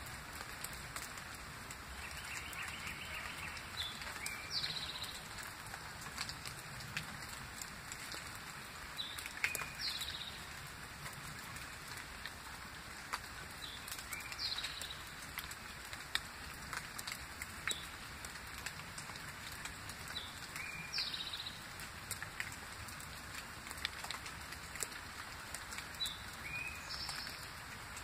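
Rain falling steadily, with scattered sharp drips, while a songbird repeats the same short call five times, about every five seconds, each call ending in a quick downward-sliding whistle.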